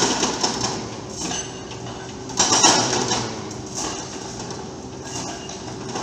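Excavator-mounted hydraulic breaker hammering concrete in two loud rattling bursts, one at the start and one about two and a half seconds in, over the steady hum of the excavator's engine.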